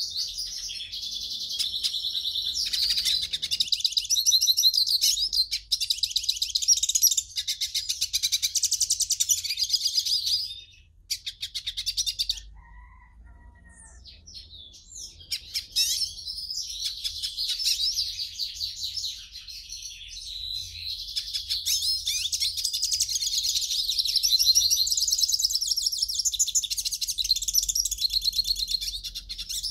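Pintassilgo, a small finch kept as a songbird, singing a long, fast, high-pitched twittering song. The song breaks off about ten seconds in, leaving a few seconds of sparse single notes, then resumes and runs on.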